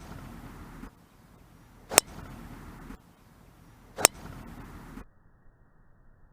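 Sharp crack of a golf club striking a ball, heard twice about two seconds apart. Each strike is followed by about a second of outdoor background that cuts off abruptly, leaving faint hiss near the end.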